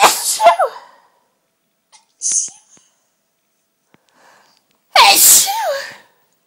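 Two forceful sneezes from a woman, about five seconds apart, each a sudden loud burst ending in a falling 'choo'. A short breathy sound comes between them.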